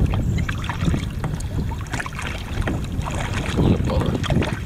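Double-bladed kayak paddle stroking through river water, splashing and dripping, with wind noise on the microphone.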